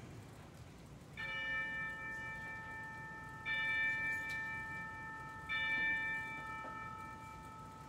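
Altar bells rung three times, about two seconds apart, each ring leaving several clear tones that fade slowly. They mark the elevation of the consecrated host during Mass.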